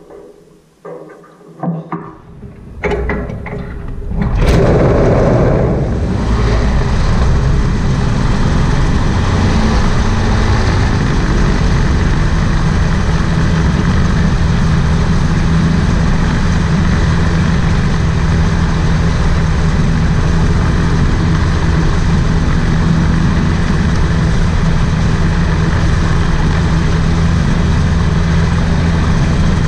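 Rotax 582 two-stroke engine of a float-equipped gyroplane starting about four seconds in, after a few short knocks, then running steadily and loudly as the craft taxis across the water.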